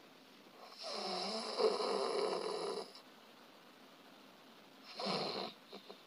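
A person snoring in sleep: one long snore lasting about two seconds, then a shorter one near the end. It is snoring at a stage rated still dangerous, from an airway narrowed by the collapsing throat.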